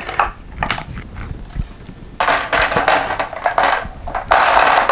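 Hard resin statue parts being handled: a few sharp clicks and knocks, then, from about two seconds in, a stretch of loud rubbing and scraping noise as the base's cover piece is worked at.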